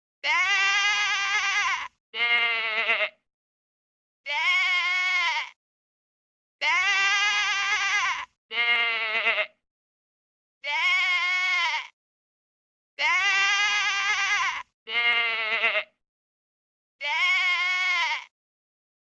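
Bleating calls repeated about nine times, each lasting one to two seconds with a pitch that rises and then falls, separated by silent gaps.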